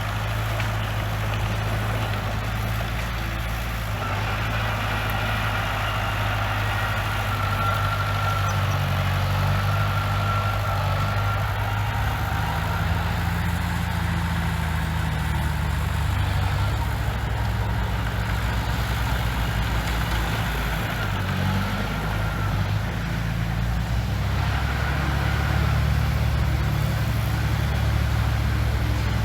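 Heavy diesel engine of a bulldozer running steadily, with its drone shifting a little in pitch as the load changes. A faint high whine comes and goes over it.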